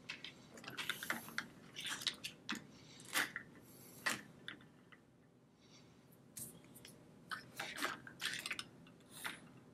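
Small plastic toy figures and their window-frame stands clicking and tapping as they are handled and snapped together, in scattered short clicks.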